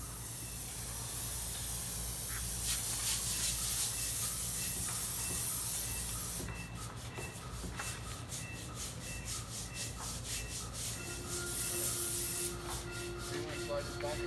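Airless paint sprayer gun spraying paint onto wooden siding: a strong hiss for the first half, broken off by a fast, even ticking, then hissing again briefly near the end. A steady low hum runs underneath.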